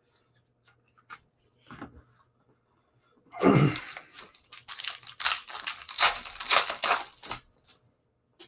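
Foil trading-card pack wrapper being torn open and crinkled: a run of rips lasting about four seconds, starting around three seconds in, after a few light taps of cards being handled.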